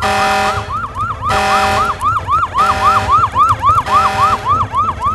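Cartoon siren sound effect: a fast rising-and-falling wail, about four cycles a second. A buzzy, blaring tone layered over it switches on and off about every second and a quarter.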